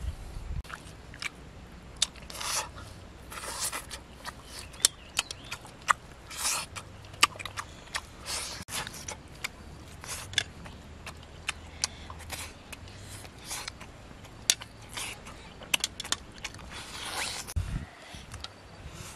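Eating sounds of grilled frog and rice: irregular sharp clicks of chewing and mouth noises, with a few longer hissing sounds and spoons scraping on plates.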